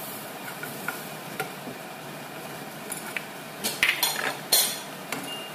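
Chopped garlic sizzling in oil in a nonstick frying pan while a wooden spatula stirs and scrapes it. A few louder scrapes and knocks of the spatula come just before the end.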